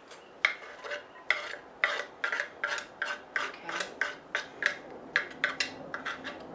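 Knife blade scraping across a wooden cutting board in quick repeated strokes, about three a second, pushing chopped onion and jalapeno off into a bowl.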